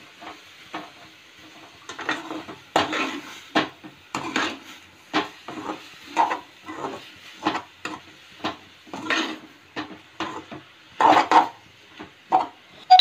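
A metal spatula stirring and scraping sliced onions and prawn masala around a metal kadai, in quick strokes about twice a second.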